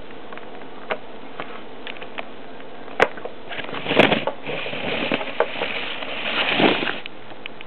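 Handling noise as Lego minifigures and the camera are moved by hand: a few sharp clicks and knocks, the loudest about three seconds in, then a rustling hiss from about four to seven seconds.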